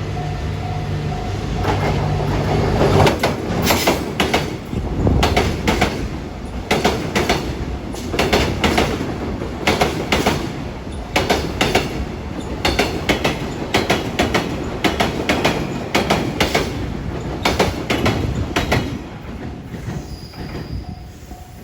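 A freight train hauled by a DD200 diesel-electric locomotive passes close by. Its diesel engine drones through the first few seconds, then the freight wagons' wheels clatter in a steady rhythm over the rail joints for about fifteen seconds before fading near the end. A level-crossing warning bell rings at the start and again as the train clears.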